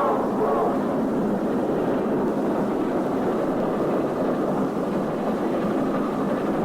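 Steam passenger train heard from inside a coach: the steam locomotive's whistle sounds briefly at the very start, then the steady rumble of the coach running along the rails.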